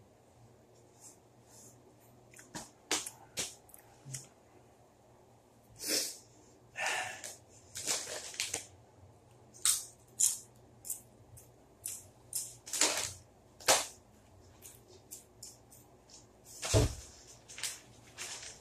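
Someone eating crunchy chips: irregular sharp crunches and crackles, with a few breathy sniffs and breaths.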